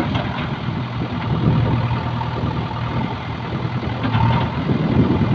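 JCB backhoe loader's diesel engine running steadily while the backhoe arm works soil into a pipeline trench, with a few short clicks and a faint higher whine coming in about four seconds in.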